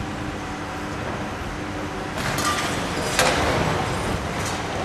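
Demolition excavator's engine running steadily while its arm breaks down a brick wall, with masonry and rubble crashing and rattling down twice, about two and three seconds in, the second crash the loudest.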